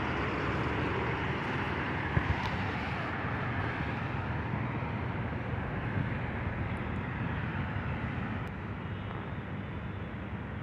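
Steady hum of road traffic at a city street crossing, with no distinct horns or voices, easing off slightly near the end.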